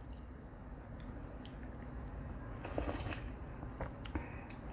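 A person sipping broth from a soup spoon: a short, faint slurp about three seconds in, followed by a few small clicks.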